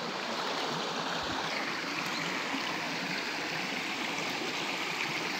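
Shallow forest stream running over rocks, a steady rush of water.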